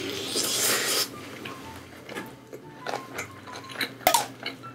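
Close-miked eating sounds: a noisy burst of biting and chewing into roast chicken in the first second, then scattered small wet clicks and taps of chewing and of food being handled, with one sharper click near the end.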